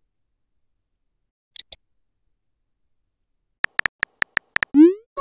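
Texting-app sound effects: a short double click, then a quick run of about eight keyboard taps as a message is typed, and near the end a brief rising swoosh as the message is sent.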